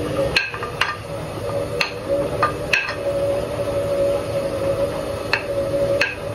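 A spoon or spatula knocking against a frying pan at irregular intervals while onion, pepper and garlic are stirred as they soften in olive oil, over a steady hum.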